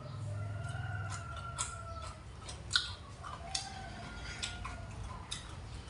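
A rooster crowing twice in the background, each call a long pitched note lasting about a second or more. Over it come chewing and sharp clicks of chopsticks and a spoon against the dishes, the loudest click just before the middle.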